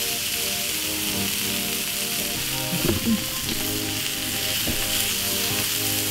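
Raw beef burger patties sizzling on a hot, oiled griddle plate: a steady frying hiss.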